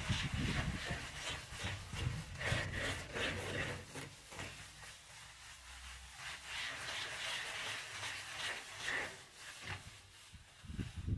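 A plastering float rubbed over fresh cement plaster in repeated back-and-forth strokes, a rasping scrape as the wet surface is floated smooth.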